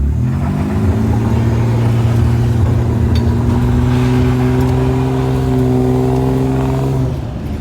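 Pickup truck engine revved up sharply from idle and held at high revs for about six seconds, then let back down near the end.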